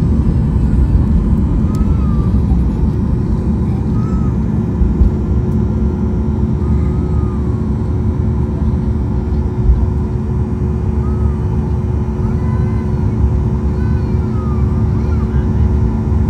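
Boeing 737-800's CFM56-7B jet engines at takeoff thrust, heard from inside the cabin as a loud, steady rumble with a steady hum, while the jet rolls down the runway, rotates and lifts off.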